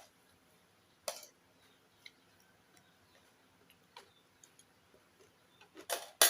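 A few short, sharp clicks and crunches from a person eating with their hands, with the loudest cluster near the end.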